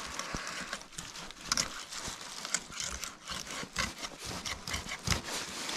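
Knife filleting a whitefish along its backbone: an irregular run of small clicks and crunches as the blade works through the bones, with soft scraping between them.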